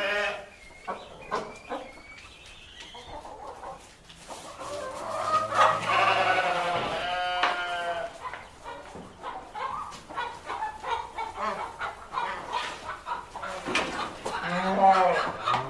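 Farmyard ambience: chickens clucking on and off, with a larger farm animal giving a long call about five seconds in and another near the end.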